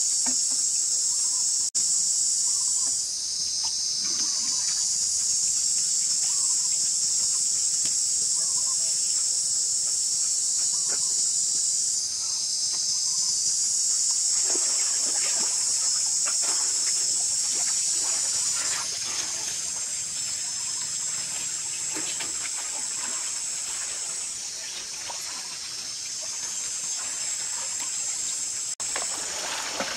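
Loud, steady high-pitched chorus of insects, with water sloshing and splashing from about halfway through as people move around in a shallow pool.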